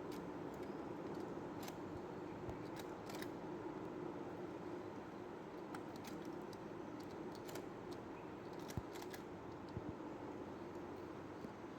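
Toy fishing game running: a steady motor whir with scattered light plastic clicks and clacks, a few sharper knocks near the end.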